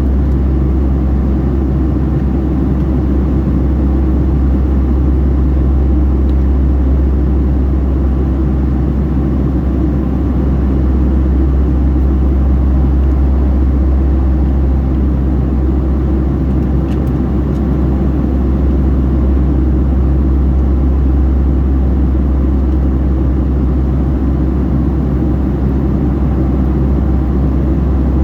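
Boeing 757-300 cabin noise from a passenger seat: a steady, loud low drone of the jet engines and airflow while the airliner is in flight.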